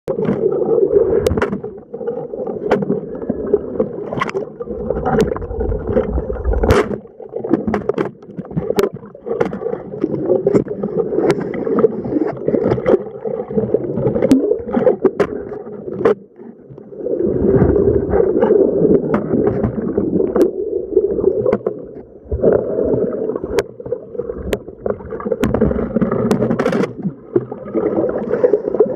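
Rough sea water churning and sloshing, swelling and easing every few seconds, with many scattered sharp clicks.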